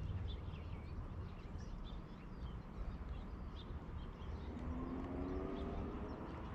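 Faint outdoor ambience: a steady low rumble with scattered faint bird chirps. Over the last two seconds a faint hum rises slowly in pitch.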